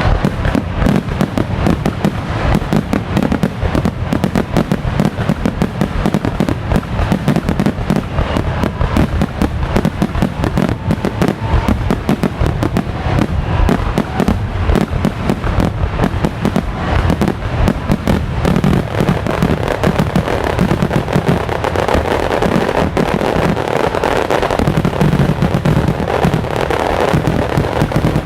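Aerial fireworks bursting in a dense, continuous barrage, the bangs coming so fast that they overlap with no gaps.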